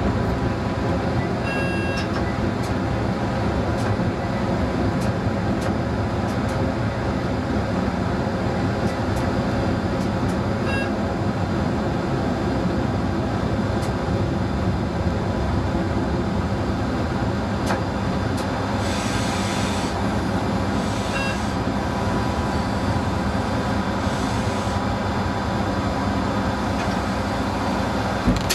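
Diesel railcar of Czech Railways class 854 running steadily while the train moves along the track, heard from the driver's cab, with a few short clicks and a hiss for a few seconds about two-thirds of the way in.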